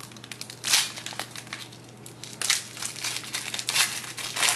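A trading card pack's wrapper crinkling in the hands as it is torn open, in several short crackly bursts.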